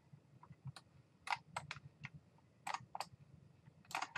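Faint, irregular clicking of a computer mouse, about a dozen short clicks, some in quick pairs, as a 3D model is zoomed and selected on screen.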